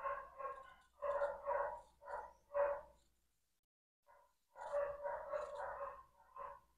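A dog barking in repeated runs, with a pause of about a second and a half roughly three seconds in.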